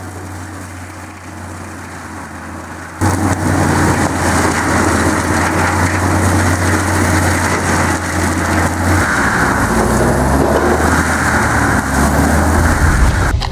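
Heavy machinery engine running steadily, then about three seconds in a sudden much louder rush of machine noise as it works under load, the engine pitch shifting in the later seconds.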